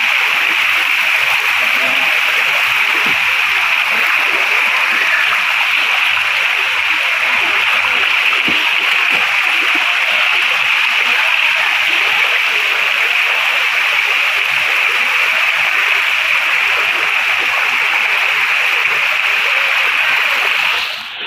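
Shallow rocky stream rushing and splashing over boulders and small cascades: a steady, loud rush of water.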